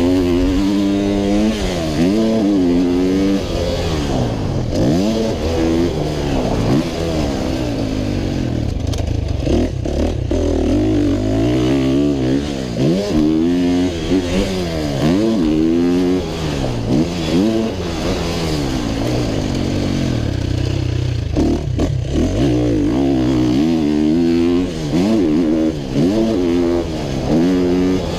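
125cc motocross bike's engine being ridden hard, revving up and shifting over and over: the pitch climbs through each gear and drops when the throttle shuts off. A steady low wind rumble runs underneath.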